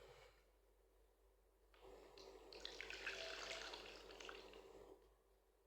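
Liquid running and splashing, with small drips and clicks, starting about two seconds in and stopping shortly before the end.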